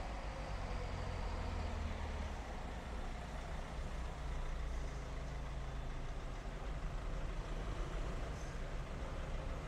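A vehicle engine running in street traffic: a steady low rumble with no sudden events.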